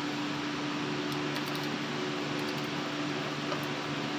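Steady mechanical hum with a low, even hiss, and a few faint light ticks as a screwdriver works screws on a toaster oven's sheet-metal case.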